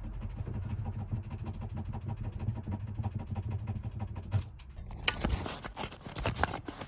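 Rubbing and scrubbing on a painted canvas to take black paint off, a louder scratchy burst about five seconds in. Before it, a steady low hum with fine rapid ticking.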